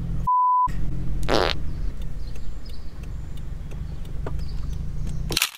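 Low, steady engine and road drone inside a car's cabin, interrupted near the start by a short one-pitch censor bleep and, about a second in, by a brief burst of noise. Just before the end a short whoosh, then the sound cuts out.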